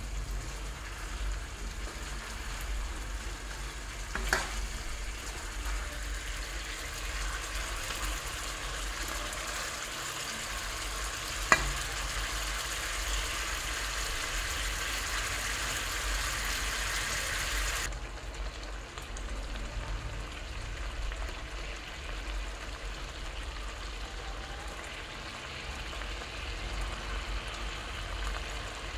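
Sardines and tomato slices in sauce sizzling and bubbling in a wok, with a metal spatula clicking sharply against the pan twice in the first half. The sizzle turns quieter about two-thirds of the way through.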